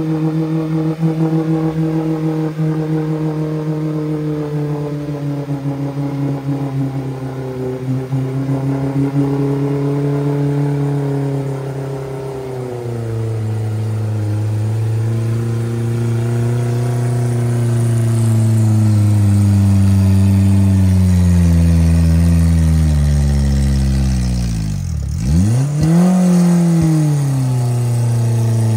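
An off-road 4x4's engine running under changing throttle, its pitch slowly sinking and rising. Near the end the pitch plunges steeply almost to nothing, then climbs back up within about a second.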